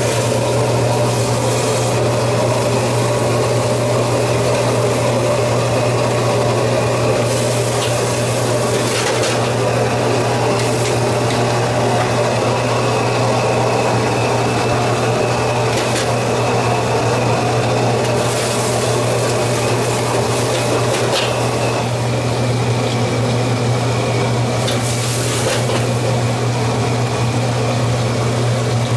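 A machine running steadily: a loud, even hum under a rushing noise, with a few brief hissing bursts.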